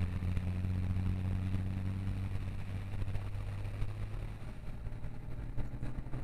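Car engine running with a steady low hum, heard from inside the cabin while the car drives through floodwater. Water sprays against the windshield and body for the first couple of seconds, then dies away. The engine note shifts slightly about five seconds in.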